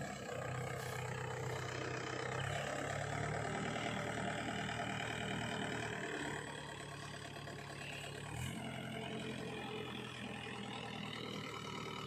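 Diesel engines of a backhoe loader and a tractor running steadily near idle while the loader loads mud. The engine note shifts twice.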